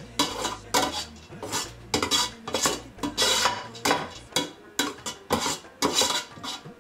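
Metal spoon scraping and knocking against the inside of a cooking pot in quick, rhythmic strokes, about two or three a second, as cooked rice is stirred to mix in the saffron colouring.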